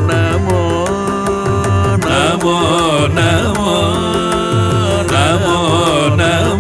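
Carnatic ensemble music: gliding melody from voices and violin with veena over a steady tambura drone, and regular mridangam drum strokes keeping the beat.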